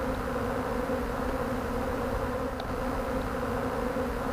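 A swarm of honey bees buzzing in a steady, low hum as they work their way into empty beehive boxes.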